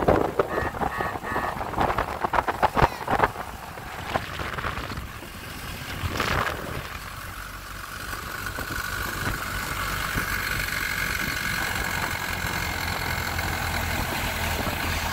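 1926 Ford Model T's four-cylinder side-valve engine running as the car drives along. A clatter of rattles and knocks comes in the first few seconds, and from about halfway a steady low hum with a high whine above it settles in.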